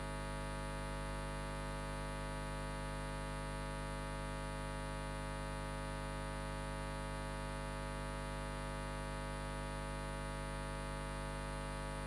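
Steady electrical mains hum with a dense stack of overtones, unchanging throughout, with no other sound rising above it.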